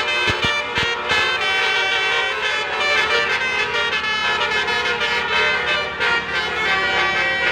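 Bus telolet 'basuri' horn playing a tune of changing, steady notes. A few sharp knocks sound in the first second.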